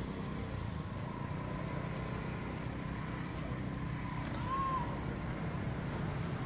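A steady low rumble of outdoor background noise, with a faint short high chirp about four and a half seconds in.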